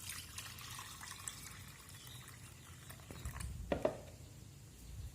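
Water being poured into a container to mix a cleaning solution, a splashing pour during the first couple of seconds, with a single knock about three and a half seconds in.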